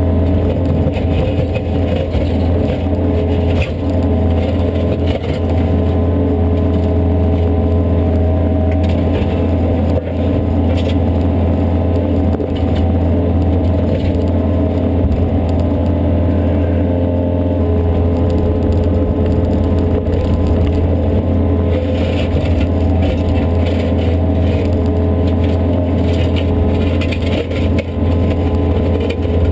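Yanmar ViO57 mini excavator's four-cylinder diesel engine running steadily, heard from inside the cab. Over it the bucket scrapes and crackles against broken asphalt and curbing now and then, most of all in the later part.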